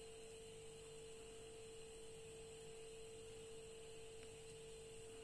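Near silence: room tone with a faint steady electrical hum.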